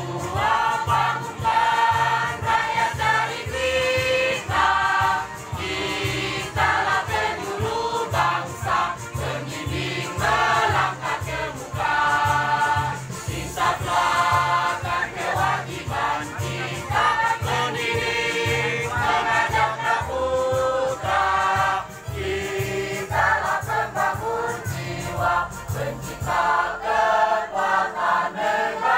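A choir, mostly women's voices, singing a song together in sustained phrases with short breaks between them, over a low, regular beat.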